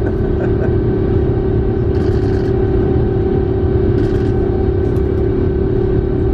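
Cabin noise of an Airbus A350-900 climbing out after takeoff, heard inside by the window over the wing: the Rolls-Royce Trent XWB engines and airflow make a steady, loud roar with a steady droning hum.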